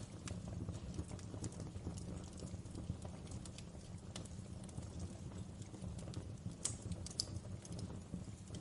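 Wood fire burning in a fireplace: a steady low rumble of flames with irregular sharp crackles and pops from the burning logs, the loudest pops about two-thirds of the way through.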